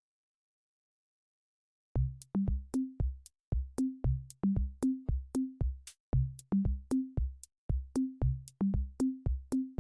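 Silence, then background music starts about two seconds in: an electronic drum-machine beat of kick drums, pitched bass notes and crisp clicks.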